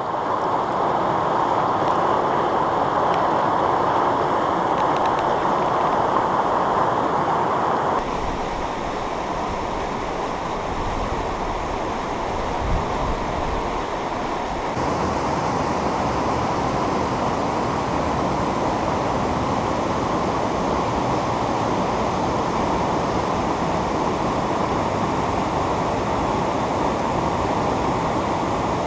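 Mountain river rushing over rapids and boulders: steady white-water noise, changing abruptly about 8 and 15 seconds in.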